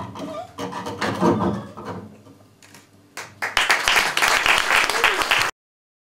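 The last sounds of a double bass and voice piece die away, then a small audience applauds from about three and a half seconds in; the applause cuts off suddenly near the end.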